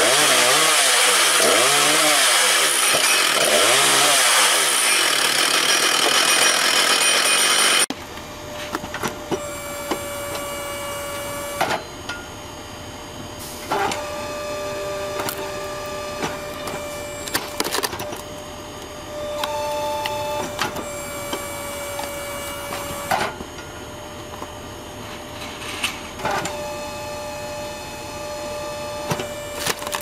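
For about 8 seconds a frame-mounted chainsaw runs loud, its pitch rising and falling as it revs through a log. It cuts off abruptly, and a Dorn-Tec vertical hydraulic log splitter takes over, humming in stretches of a few seconds as the ram strokes, with sharp cracks every few seconds as the wood splits.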